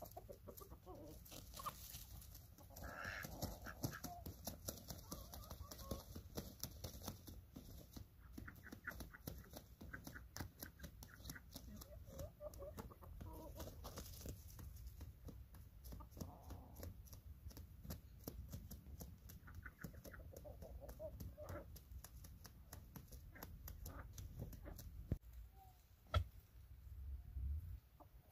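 Domestic chickens clucking softly now and then, with many faint clicks and crackles throughout and a sharper knock or two near the end.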